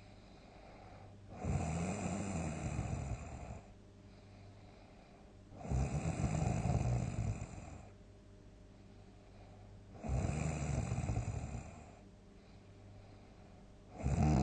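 A sleeping person snoring loudly, one long snore about every four seconds: three full snores, with a fourth starting at the very end.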